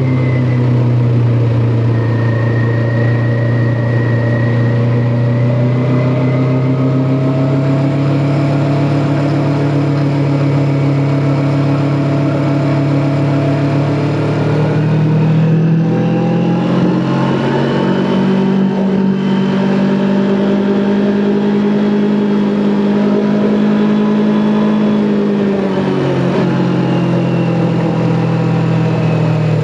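Kawasaki Ninja 400's parallel-twin engine running under way at steady revs over a rush of wind and road noise. About halfway through, the revs climb and hold higher, then fall back near the end.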